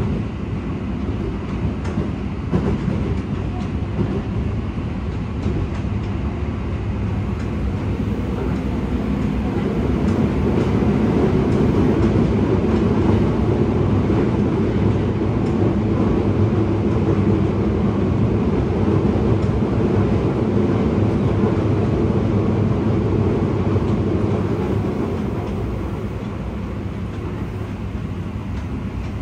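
Running noise of a Yokohama Municipal Subway 4000-series train, heard from inside the car in a tunnel: the rumble of wheels on rail and the car body. It grows louder about ten seconds in and eases off again near the end.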